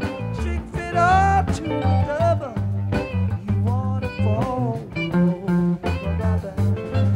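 Live rock band playing a guitar-led passage from a soundboard recording: electric guitar lines with bending notes over bass guitar and drums.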